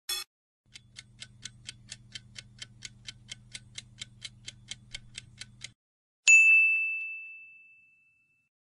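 Quiz countdown-timer sound effect: a clock ticking about four times a second over a low hum for about five seconds, then stopping. A single bright bell ding follows and rings out, marking the reveal of the answer.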